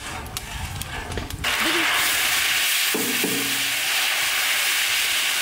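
Chopped garlic frying in a large pan of hot oil: a loud, steady sizzle that starts suddenly about a second and a half in, as the garlic goes into the oil, with a metal spatula stirring through it.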